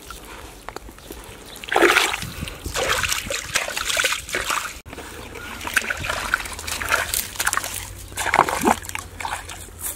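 Hands digging through wet mud and muddy water, giving irregular splashes; the loudest comes about two seconds in, with more clusters later.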